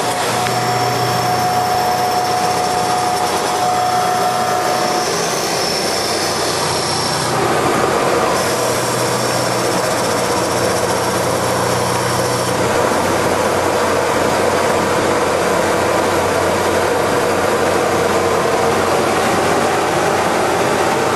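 Hydraulic copy lathe running under power: a steady mechanical noise with a low hum and, for the first few seconds, a thin steady whine. Its sound shifts several times as the machine works.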